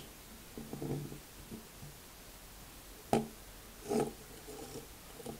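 Plastic Lego bricks of a small puzzle box being handled: a soft rubbing sound about a second in, a sharp click about three seconds in, and another short rub about four seconds in.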